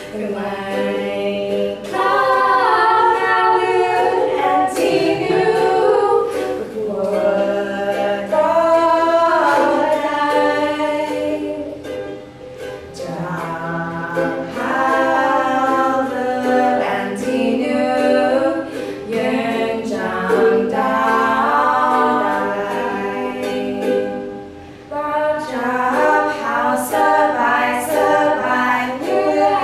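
Three women singing a song together, accompanied by a strummed ukulele.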